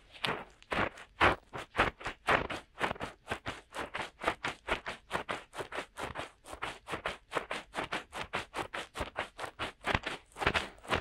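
Fingertips rubbing and scratching in the silicone ears of a DuoPop 2.0 binaural microphone, on both sides at once: quick, even rustling strokes, several a second, imitating ear cleaning with fingers.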